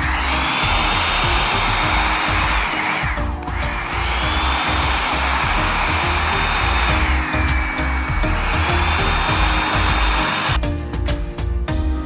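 Revlon One-Step Volumizer Plus hair dryer brush blowing, its motor whine stepping up and down in pitch as the speed setting changes. It cuts out briefly about three seconds in and stops near the end. Background music with a steady beat plays throughout.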